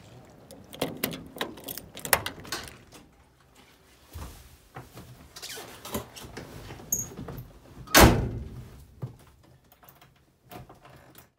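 Clicks, rustles and knocks of someone getting into the cab of a VW T3 van, with one heavy thump of the van's door shutting about eight seconds in. The engine is not running.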